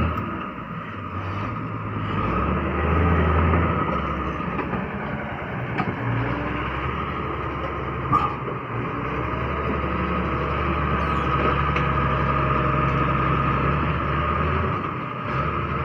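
Diesel engine of a small D4 crawler bulldozer running, a continuous low drone that swells and eases a little, with a steady high whine over it.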